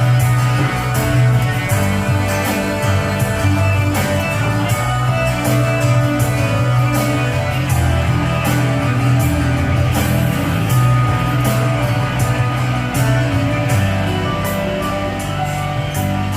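Instrumental music led by guitar, with a bass line and a steady beat.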